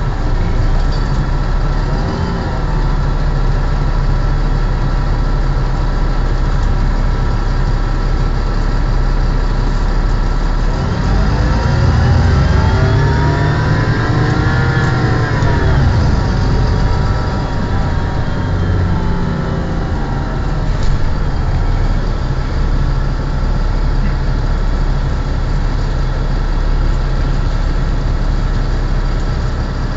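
VDL Ambassador 200 city bus heard from inside the cabin, its engine and drivetrain making a noise called very bad. The pitch climbs about eleven seconds in, peaks a few seconds later and falls away again, then settles into a steady drone.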